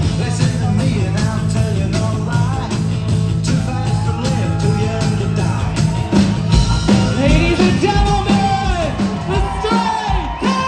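Rock and roll music with singing over a steady beat.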